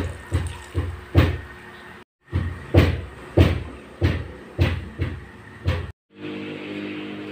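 A stainless steel pot lid knocking and clanking against a wok, about two knocks a second, in two short runs broken by abrupt cuts. Near the end it gives way to a steady low hum.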